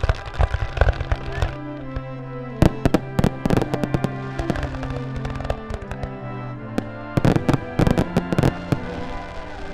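Fireworks going off in three volleys of rapid bangs and crackles, over background music with held notes.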